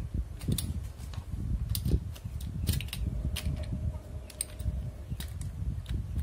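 Irregular sharp clicks and light taps from handling the small parts of an electric mosquito swatter under repair, over a low steady rumble.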